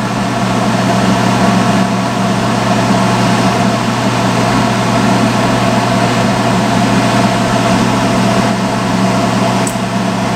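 Salon hood hair dryer running: a loud, steady blowing with a low hum.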